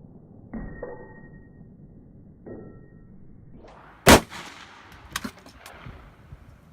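Two faint metallic clangs that ring briefly, then a single loud gunshot about four seconds in, followed by a few light clicks.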